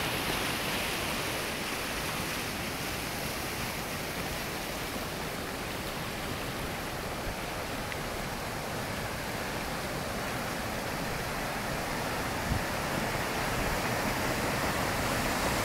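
Steady rushing of a river in flood: fast, deep, muddy water running high along its bank.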